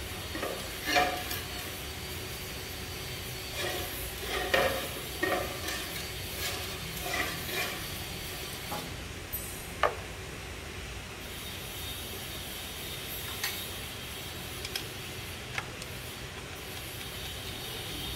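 Light metallic clicks and clinks of hand and tool work on an automatic transmission's exposed valve body, in irregular clusters over a steady hiss, with one sharp click about ten seconds in.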